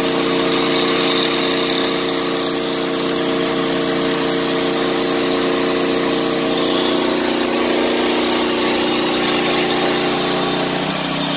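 Corded electric angle grinder running with its disc spinning free, not cutting, over the steady running of a four-stroke inverter generator that powers it. The tone steps down slightly near the end.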